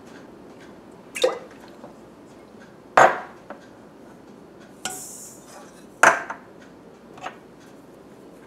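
Kitchen utensils and dishes clacking: five separate sharp knocks of a spoon and cups against hard kitchen ware, loudest about three and six seconds in, with a short hiss about five seconds in.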